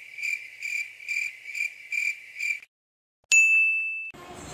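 Cricket-chirp sound effect, the stock gag for an awkward silence, chirping about twice a second and stopping abruptly after about two and a half seconds. After a short dead-silent gap a single bright ding rings out and fades, cut off near the end as background noise comes in.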